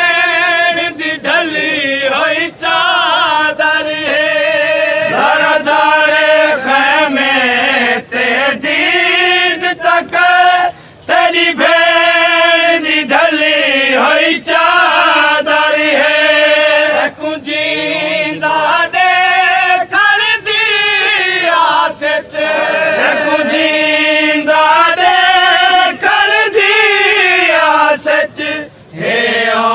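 Chanted recitation of a Saraiki noha, a Shia mourning lament: long, drawn-out vocal lines that waver up and down in pitch, broken by short pauses between phrases.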